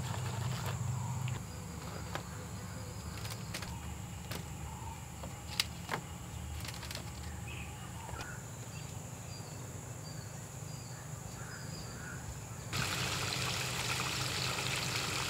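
Quiet outdoor nature ambience: a steady high insect drone with a few faint bird chirps and a couple of small clicks. About thirteen seconds in, a louder even hiss of running water comes in.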